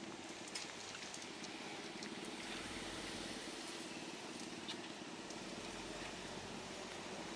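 A cat crunching dry kibble from a plate, with small irregular clicks from chewing. The owner worries that the food seems to be catching as it eats.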